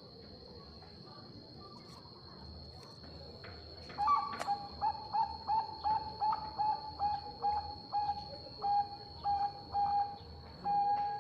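Zebra dove (perkutut bangkok) cooing. After about four quiet seconds comes a fast run of short clipped coos, about three a second, lasting about seven seconds and ending on a longer note. A faint steady high-pitched tone runs underneath.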